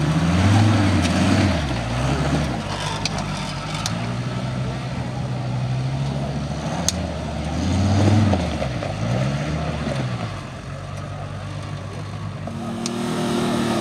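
Off-road 4x4's engine revving up and down again and again under load as it crawls up a steep, rutted hill-climb slope. The revs peak about a second in and again around eight seconds. A few sharp clicks sound over it.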